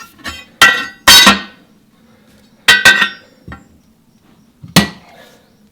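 Tire irons clanking against the steel wheel rim of a backhoe tire as the bead is levered on over an inner tube: sharp metallic clanks that ring, in four groups.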